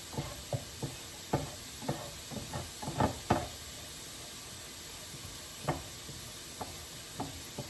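A cooking utensil knocking and scraping against a frying pan in irregular taps and clicks, most of them in the first three and a half seconds, over a faint steady sizzle of eggs frying. The eggs are sticking, because the pan is not non-stick.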